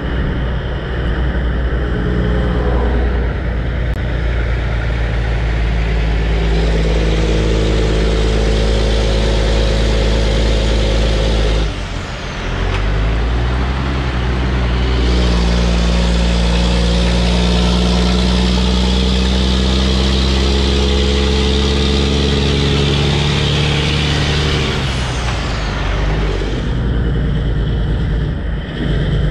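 Heavy diesel truck engines running loud and close, a deep rumble with a strong engine note. The note builds from about six seconds in, drops out briefly around twelve seconds, comes back strong and steady until about twenty-five seconds, then eases off.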